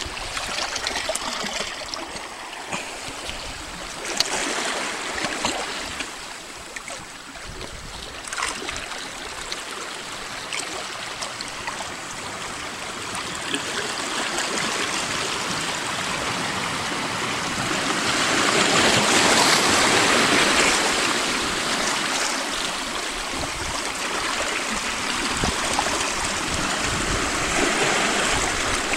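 Small sea waves lapping and washing over shoreline rocks and pebbles in shallow water, a continuous gurgling wash that swells to its loudest about two-thirds of the way through.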